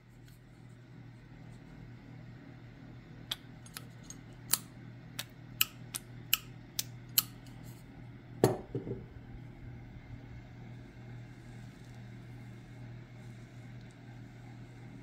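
Thumb-pump oil can clicking about nine times over some four seconds as it squirts boiled linseed oil onto a wooden axe handle, followed by one heavier knock. A steady low hum runs underneath.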